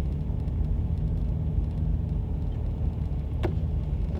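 Car engine and road rumble heard inside the cabin while driving slowly up an icy, snow-covered road, with faint steady engine tones. A single short click about three and a half seconds in.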